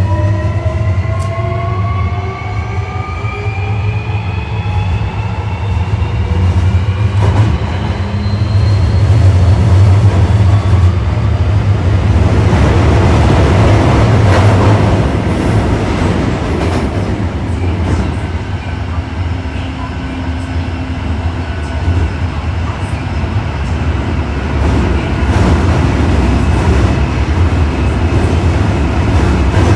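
Osaka Metro 1300 series subway car's Toyo IGBT-VVVF inverter and traction motors whining in several tones that rise steadily in pitch as the train accelerates, heard from inside the car. The whine then gives way to loud wheel-on-rail running noise at speed, loudest around the middle, which eases off somewhat toward the end.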